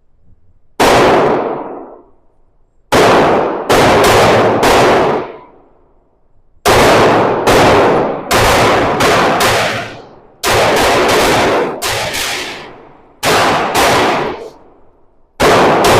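SIG P365 X Macro pistol fired repeatedly: about seventeen shots, singly and in quick strings of two to four. Each shot trails off in an echo.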